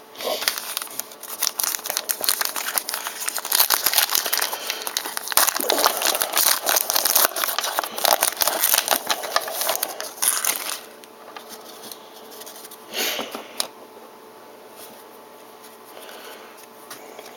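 Trading card pack wrapper being crinkled and torn open, a dense crackly rustle for about the first ten seconds, then quieter with a couple of brief rustles.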